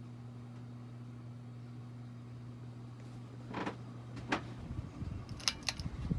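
1989 Universal hugger ceiling fan motor running on high speed with a steady hum. From about halfway through there are handling noises: rustles and knocks, with a few sharp clicks near the end.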